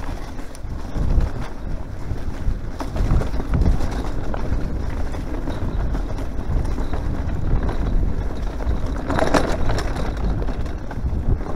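Mountain bike riding fast over overgrown grassy singletrack: wind buffeting the camera microphone over a steady low rumble of tyres and bike rattle, uneven with the bumps of the trail. A brief, louder burst of noise comes about nine seconds in.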